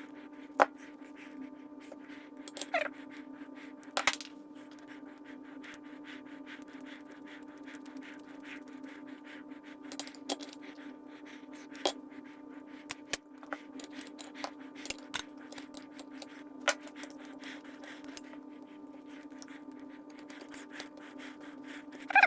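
Occasional light clicks and taps from hand-plane parts and tools being handled on a workbench, over a steady low hum.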